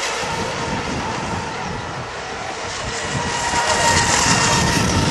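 Radio-controlled Mono1 model racing boats running on the water: a steady high motor whine over a wash of noise, growing a little louder near the end.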